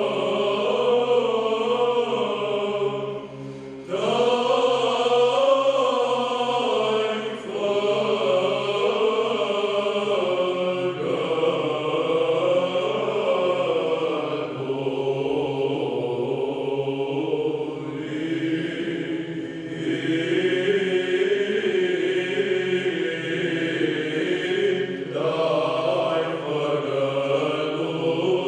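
All-male choir singing Byzantine chant a cappella: a bending melody over steady low held notes, with brief breaks between phrases about three seconds in, near eight seconds, and near twenty-five seconds.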